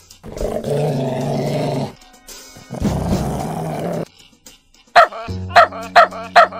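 A dog barking: a quick run of about five short, sharp barks near the end, over music. Before that come two longer steady sounds, each lasting a second or so.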